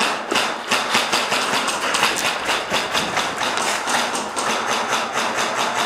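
Airsoft gunfire: a long rapid string of sharp pops at about seven a second.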